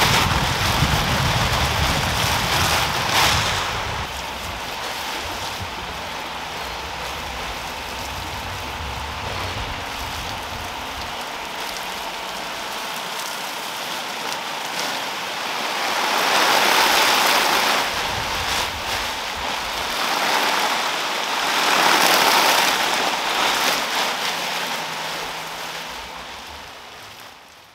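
Steady rain, with a low rumble of thunder in the first few seconds; the rain swells twice in the second half, then fades out.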